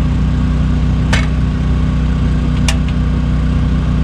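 A portable generator's engine running with a steady hum, with two sharp clicks, one a little after a second in and another about a second and a half later.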